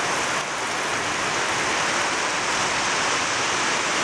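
Heavy rain pouring down hard onto a concrete yard and grass, a steady dense hiss.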